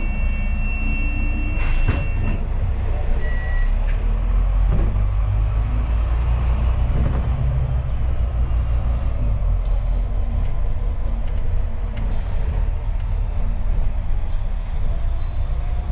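Double-decker bus running, heard from on board: a steady low rumble of engine and road noise, with a few brief high electronic tones in the first few seconds.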